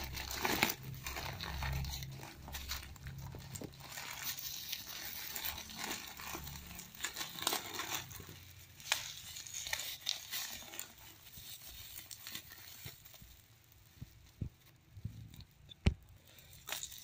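Plastic bubble-wrap packaging crinkling and tearing as a parcel is unwrapped by hand, with many scattered crackles and clicks. A low rumble runs under the first several seconds.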